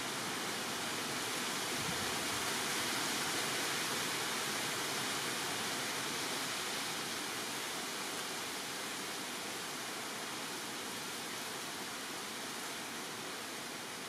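Steady, even rushing noise with no bird calls or other distinct events, swelling a little a few seconds in and easing off toward the end.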